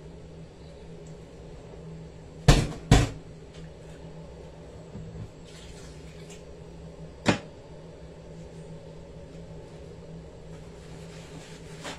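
Sharp knocks of kitchen things being handled, such as a cupboard door or a pot set down: two close together a few seconds in and one more past the middle, over a low steady hum.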